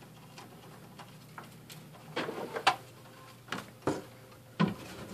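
A set-top box and its cables being handled: scattered light clicks and knocks, a small cluster near the middle and a few more toward the end.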